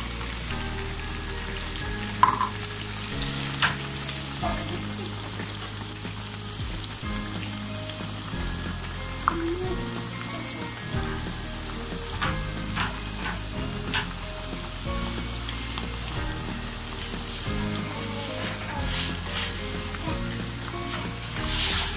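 Battered chicken pakoras deep-frying in hot oil over medium heat, a steady bubbling sizzle. A few sharp clicks of a metal spatula against the pan.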